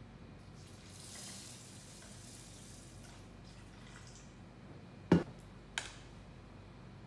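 Water poured from a measuring jug into a stainless steel pot, a soft steady stream that thins to a trickle and stops. About five seconds in comes one sharp knock, then a lighter click a moment later.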